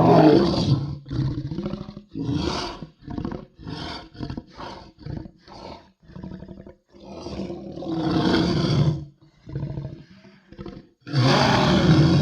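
A large animal roaring. A loud roar opens the sequence, then comes a run of short grunting calls that grow fainter, then two more long roars, the last and loudest starting near the end.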